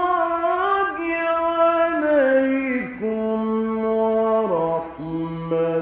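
Male Qur'an reciter chanting in the melodic mujawwad style, drawing one phrase out on long held notes. The notes step down in pitch, with short breaks about three and about four and a half seconds in.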